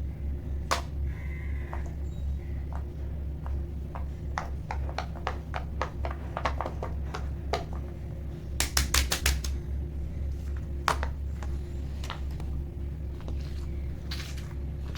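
Fidget toys being pressed and handled: scattered sharp clicks and pops, with a quick run of about six loud pops a little past halfway, over a steady low hum.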